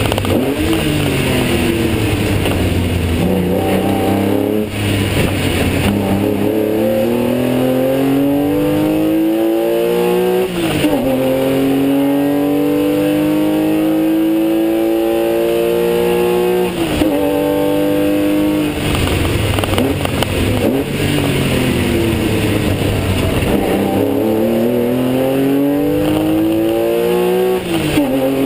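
3.4-litre flat-six of a Porsche 996 Carrera 2 race car under hard acceleration, heard from inside the cockpit: the engine note climbs steadily through each gear and drops sharply at each of several upshifts.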